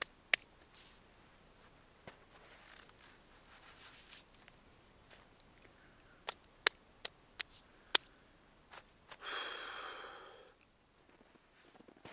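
Sharp hand claps: one early on, then a quick run of five between about six and eight seconds. Near the end comes a long, breathy sigh.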